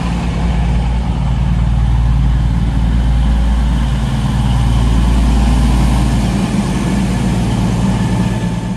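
Class 222 Meridian diesel multiple unit passing close by, its underfloor Cummins diesel engines running with a steady low drone and a rumble of wheels on the rails.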